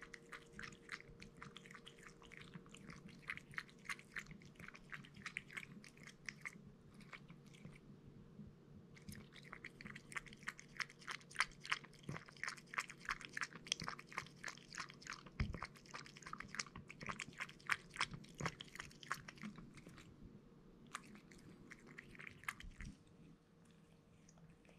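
Somali cat lapping milk from a ceramic bowl: a quick run of small wet clicks at about four a second, with two short pauses, stopping near the end as the bowl is drained.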